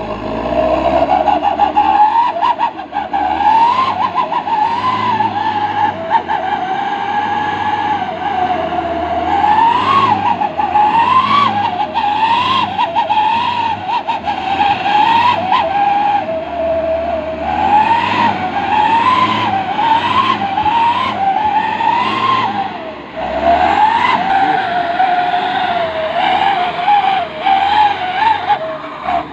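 Mitsubishi Fuso Canter 4x4 dump truck's diesel engine revving up and down again and again as it pulls through deep mud. Its pitch rises and drops roughly every second or two, in several runs.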